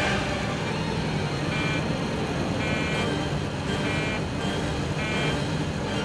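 Airliner cabin rumble in an in-flight emergency, with a warning alarm beeping about once a second over it.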